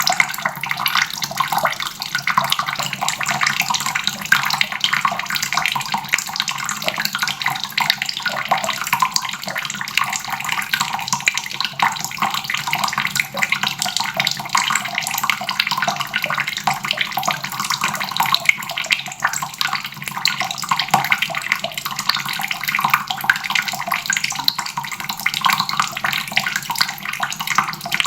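Water running steadily from a faucet and splashing, an unbroken gush without drips or pauses.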